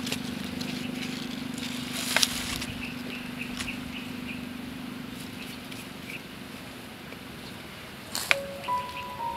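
A metal blade digging into dry, clumpy soil and the soil crumbling as hands pull arrowroot rhizomes loose: scattered knocks and scrapes, the sharpest about two seconds in, with a steady low hum underneath.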